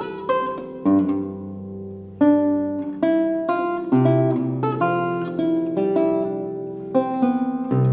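Solo 14-course archlute playing a baroque allemande: plucked melody notes and chords ring and fade over low bass courses, with a brief lull about two seconds in and deep bass notes joining from about halfway.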